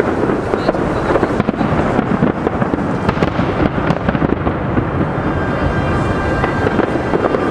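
Large fireworks display: a dense, continuous barrage of shell bursts whose bangs run together into a steady booming rumble.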